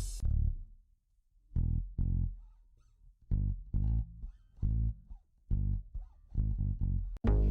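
Solo bass line from a '90s R&B-style sample loop: a phrase of short, low, plucked-sounding notes with gaps between them. Near the end a sharp click starts a brighter new sample.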